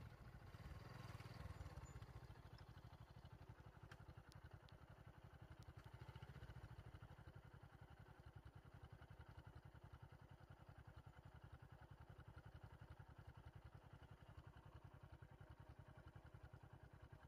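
A vehicle engine idling faintly: a low, steady, rapid pulse.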